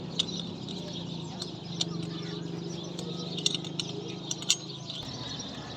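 A few sharp metallic clinks, like tools knocking against a wheel rim, over a steady low machine hum and faint birdsong.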